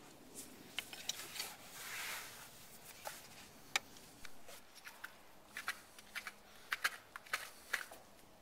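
Hoof knife paring a horse's hoof: a run of short, irregular scraping clicks that come thicker in the second half.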